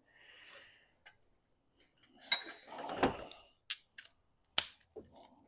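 Irregular metal clinks and clicks of a ratchet and 14 mm socket working on the alternator's bottom anchor bolt, with a single sharp click about four and a half seconds in being the loudest.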